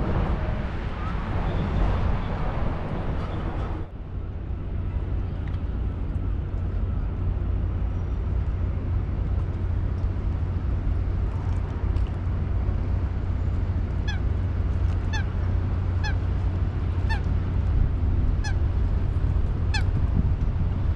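A goose honking repeatedly, about one call a second for several seconds in the second half, each call falling in pitch, over a steady low rumble. The background changes abruptly about four seconds in.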